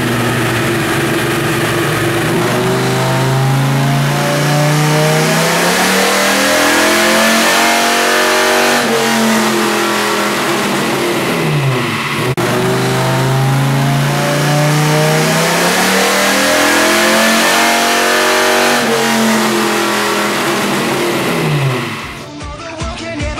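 Dodge Ram SRT-10's 8.3-litre Viper V10 making two full-throttle dyno pulls on a 200 shot of nitrous. Each pull climbs steadily in pitch for about nine seconds, then drops away. Music takes over in the last second.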